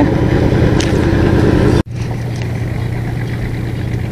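A small engine running steadily at idle, a low, even hum. It drops out for an instant a little under two seconds in and comes back slightly quieter.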